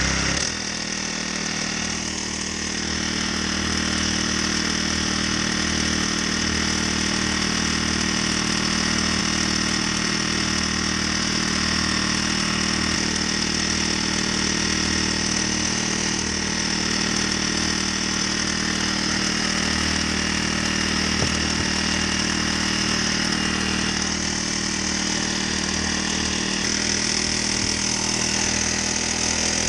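Honda GX35 single-cylinder four-stroke engine driving a motor kayak, running steadily. It dips slightly about half a second in, then settles back to an even run.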